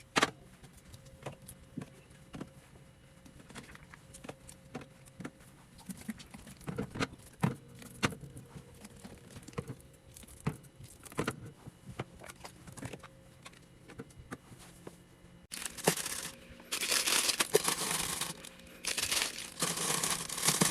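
Scattered light clicks and taps of items being handled and set down, then, about three-quarters of the way through, plastic packaging crinkling and tearing, the loudest sound here.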